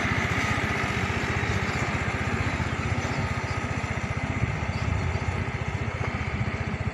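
Loaded dump truck's engine running as it pulls away slowly over dirt, a steady fast throb that grows a little fainter.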